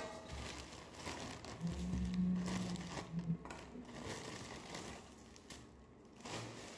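Plastic packaging, a zip-lock bag and bubble wrap, crinkling and rustling irregularly as it is handled and pulled open. A brief low steady hum sounds about two seconds in.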